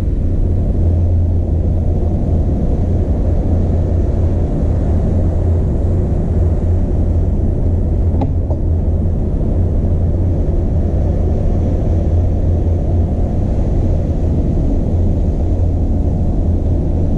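Steady low rumble on the top deck of a RoRo container ship under way: wind over the deck and the ship's machinery, with a single brief click about eight seconds in.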